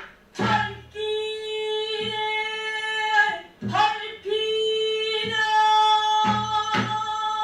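Pansori singing: a voice holding long, slowly wavering sung notes, with several low drum strokes, typical of the buk barrel drum that accompanies pansori, struck between phrases.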